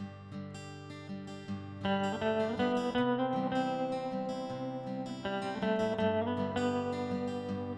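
Acoustic guitar music, strummed, growing louder and fuller about two seconds in.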